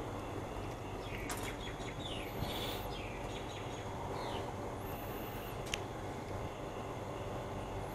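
Steady outdoor background noise with birds chirping a few times, and a couple of short sharp clicks.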